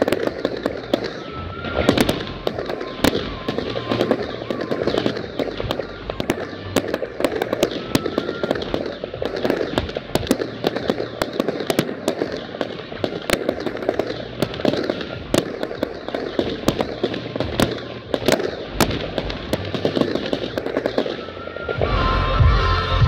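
Professional fireworks display: aerial shells bursting and gold stars crackling in a dense, continuous run of sharp bangs and pops.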